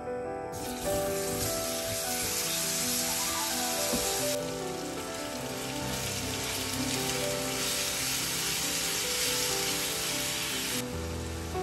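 Banana slices sizzling as they fry in melted butter and sugar in a non-stick frying pan. The sizzle starts about half a second in and stops shortly before the end, with soft background music under it.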